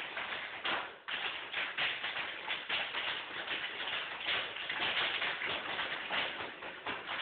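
Tap shoes of a group of dancers striking a wooden floor in a fast, continuous run of taps and shuffles, with a brief break about a second in.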